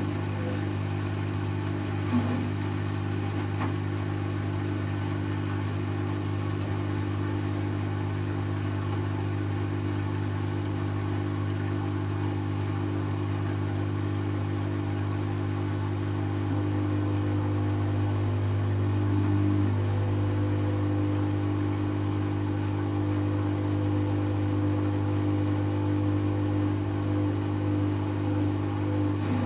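Servis Automatic M3008B washing machine's drum and motor spinning at speed during its 800 rpm intermediate spin, a steady hum that gets a little louder about halfway through.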